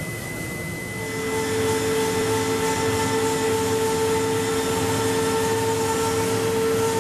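High-speed air turbine spindle running: a steady whine of several tones over a rush of air. It gets louder and changes pitch about a second in.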